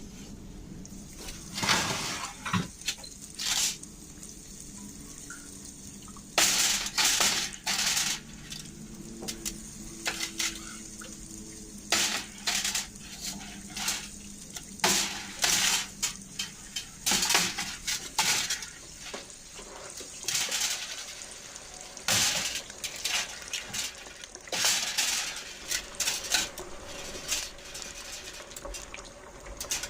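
Kitchen food-preparation sounds: water splashing in short, irregular bursts, mixed with clinks and clatter of dishes and utensils.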